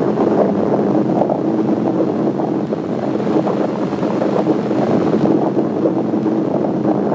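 Propeller-driven piston-engine aircraft flying by, a steady engine drone.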